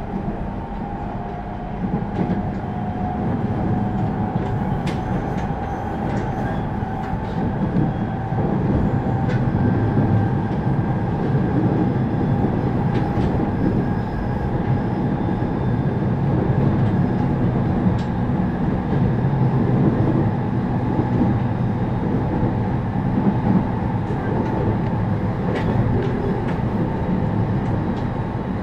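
JR East 209 series 2100-subseries electric train running, heard from inside a passenger car: a steady rumble of wheels on rail with a thin motor whine and scattered clicks over rail joints. It grows louder about two seconds in and again around eight seconds in.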